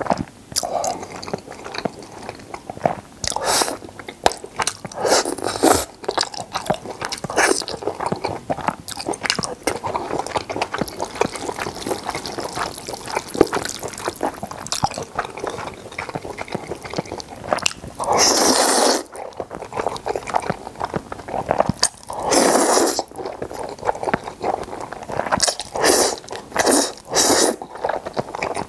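Close-miked chewing of jajangmyeon noodles in thick black bean sauce with seafood, wet smacking and squelching throughout, broken by two longer slurps of noodles in the second half.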